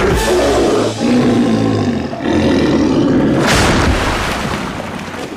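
Cartoon sound effect of a giant alligator roaring, two long rough roars. A sudden burst of noise comes about three and a half seconds in, and then the sound dies away.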